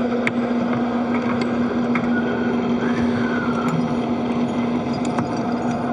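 Steady spacecraft cabin ventilation: a constant hiss of air-circulation fans with a steady low hum underneath. A few light clicks are heard as the cabin is moved through.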